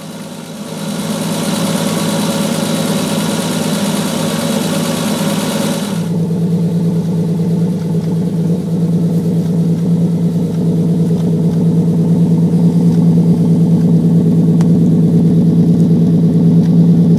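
Triumph GT6's straight-six engine running steadily at idle. For the first several seconds a hiss lies over it, cutting off abruptly about six seconds in, after which the engine's low tone is clearer and grows slightly louder.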